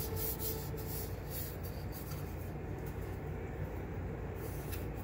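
Light rubbing and scraping from handling a plastic statue wing, mostly in the first couple of seconds and again near the end, over a steady low room hum.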